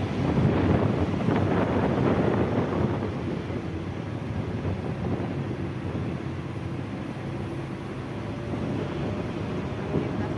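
Steady engine hum and road noise heard from inside a car driving slowly, louder for the first few seconds and then easing off.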